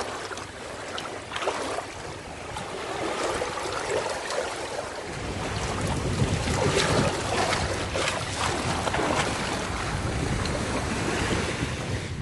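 Small waves washing around wooden pier pilings and onto the sand, with wind buffeting the microphone, heavier from about five seconds in.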